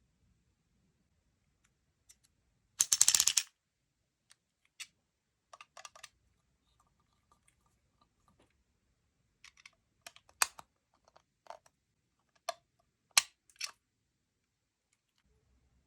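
Scattered light clicks and taps of small hard parts being handled, with one short rasping scrape lasting about half a second, three seconds in.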